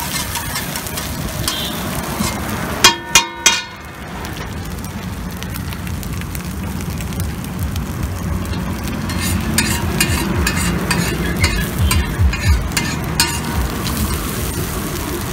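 Boneless chicken pieces sizzling in oil on a flat iron griddle, with a metal spatula scraping and tapping against the griddle, most busily in the second half. About three seconds in come three loud, short ringing sounds.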